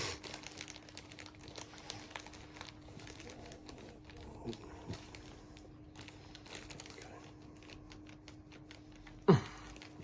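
Soft rustling and crinkling of a wet wipe as a French bulldog puppy is wiped clean, over a faint steady hum. Near the end comes one brief, louder vocal sound that drops sharply in pitch.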